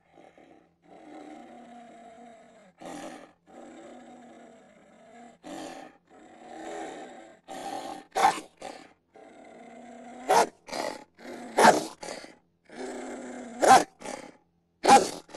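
Made-up 'wolf spider' sound: rough animal growls and roars in short broken stretches, with about five brief, much louder outbursts in the second half.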